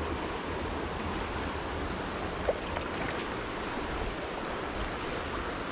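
Shallow creek riffle rushing steadily over rocks, with one small tap about two and a half seconds in.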